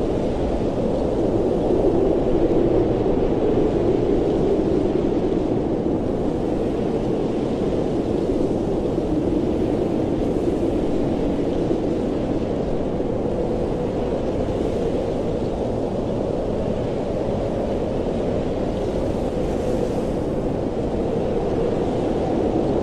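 Blizzard wind: a steady low rushing noise that slowly swells and eases, with no crackles or distinct events.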